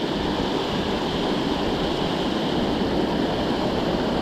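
Steady rush of water pouring over a low dam's spillway.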